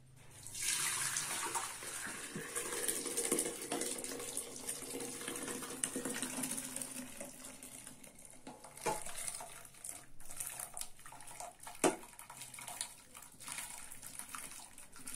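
Hot cooking water poured from a cooking pot into a stainless steel pot, a steady splashing pour for the first half, then the boiled whole wheat grains sliding and tipping in after it, with a few sharp knocks of metal on metal.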